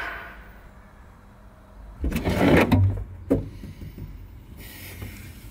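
Cardboard boxes of brake parts being handled and lifted out: a burst of scraping and rustling with a low thud about two seconds in, a sharp knock a moment later, then a soft hiss near the end.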